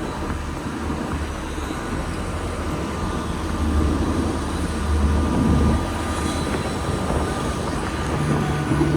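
Amphibious tour bus's engine running steadily as it cruises on the water: a low drone that swells briefly around four and again five seconds in.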